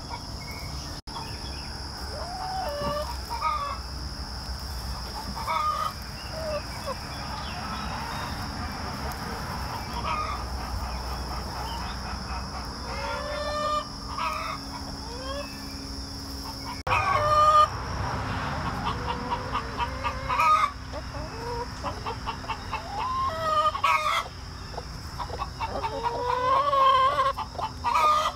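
Hens clucking and calling, a steady scatter of short rising and falling clucks from several birds, over a steady high-pitched tone in the background.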